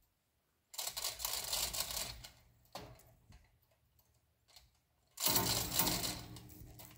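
A 2-ton chain fall's hand chain rattling and clicking through the hoist as it is hauled hand over hand, in two spells of about two seconds each, one starting just under a second in and the other about five seconds in, tightening the pull on a leaning 14-inch maple.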